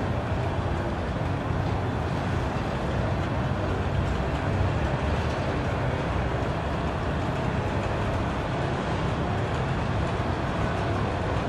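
A freight train of enclosed autorack cars rolling steadily past, a continuous low rumble of wheels on rail.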